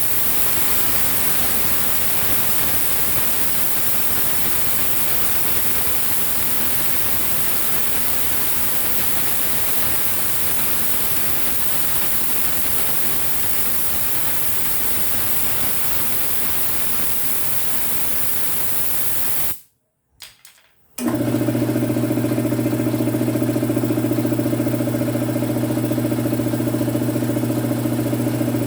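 A loud steady hiss that stops abruptly about twenty seconds in. After a short break, an air compressor's electric motor runs with a steady, even hum.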